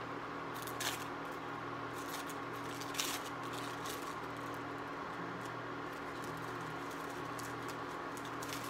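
Steady hum of an induction cooktop, with short crackles of plastic wrapper as individually wrapped cheese slices are unwrapped, the sharpest about one and three seconds in.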